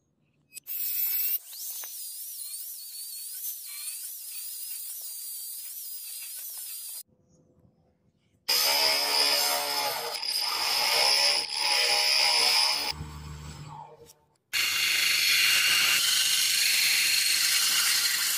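Power grinders abrading a steel knife blank: a steady hissing, screeching grind of metal against an abrasive wheel and belt, in three passes broken by a short near-silent pause about seven seconds in and a brief break near fourteen seconds.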